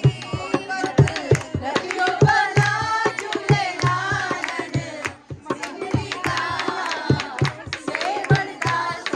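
Dholak drum beaten in a quick, steady rhythm of about three strokes a second, with voices singing along. Drum and singing drop out briefly a little past halfway, then carry on.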